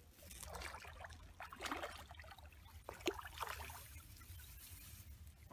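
Faint, irregular water splashing: a hooked carp thrashing at the surface as it is played in to the bank, with one sharp click about three seconds in.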